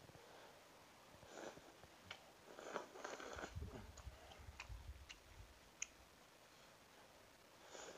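Faint chewing and slurping of instant noodles, with a few light clicks of a metal fork against a plastic bowl.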